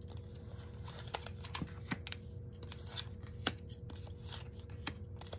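Tarot cards being drawn from a deck and laid down on a cloth-covered table: a scattered run of soft, irregular clicks and flicks.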